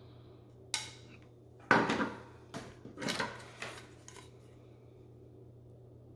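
Small hard plastic parts clicking and clattering as they are handled and set down on a work surface: a handful of sharp knocks over about three and a half seconds, the loudest about two seconds in.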